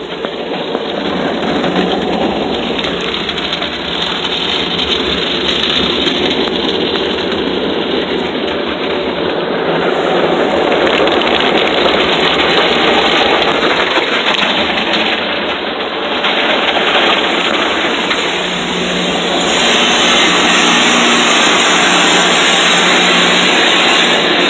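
Automatic tunnel car wash spraying water against the car's body and windows, heard from inside the cabin as a loud, steady rushing wash. It gets louder and brighter about twenty seconds in.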